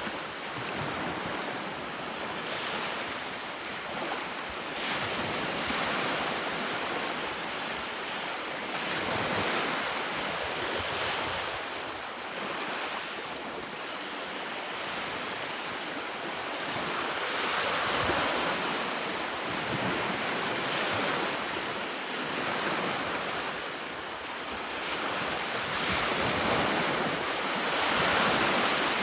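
Sea waves breaking and washing on a shore, a continuous rushing that swells and ebbs every few seconds.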